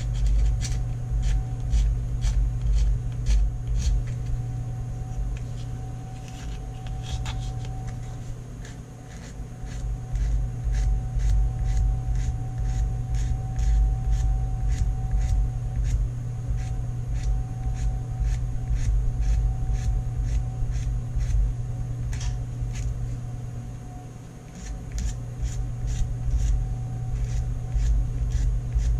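Hand-sanding an epoxy-filled chip in a revolver grip with a small piece of 80-grit sandpaper: a continuous run of quick scratchy rubbing strokes, which eases off briefly about nine seconds in and again around 24 seconds.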